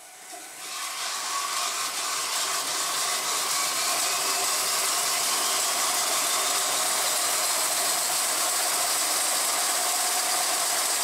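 A Hall and Brown No. 2 36-inch bandsaw, driven through a variable frequency drive, starting up with no wood in the blade. It rises in pitch and loudness as the wheels come up to speed over the first two seconds or so, then runs steadily.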